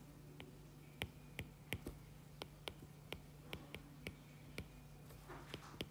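Quiet, irregular sharp clicks, about two or three a second, from calculator keys being pressed and a stylus tapping on a tablet screen while figures are worked out and written down. A faint steady hum lies underneath.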